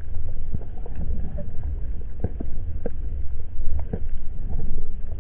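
Muffled underwater sound picked up through a dive camera's housing: a steady low rumble of water with scattered sharp clicks and ticks.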